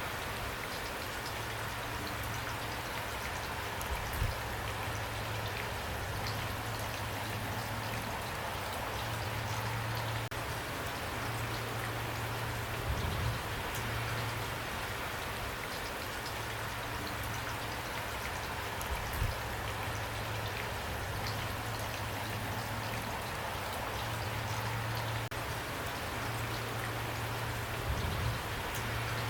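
Steady rain falling, with individual raindrops ticking on a surface. A low hum comes and goes underneath, and there are a few soft low thumps.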